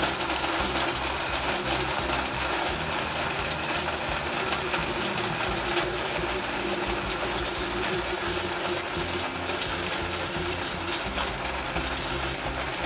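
Electric countertop blender motor running steadily at high speed, churning a drink in its jar.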